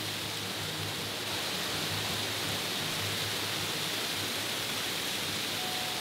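Waterfall spilling over layered rock ledges: a steady hiss of falling and splashing water.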